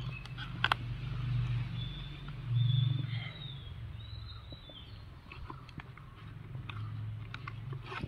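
Cardboard box and paper packaging handled and pulled open, with a sharp click under a second in and a few faint ticks and scrapes, over a steady low rumble that swells twice.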